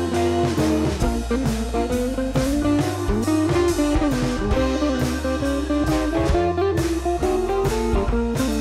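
Instrumental background music: a guitar melody with bending notes over a steady drum-kit beat.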